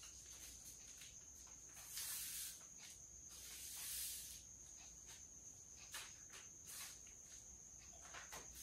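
Faint rustling of a paper chart being handled and pressed onto a board, in two short swells about two and four seconds in, with a few light taps later, over a faint steady high-pitched tone.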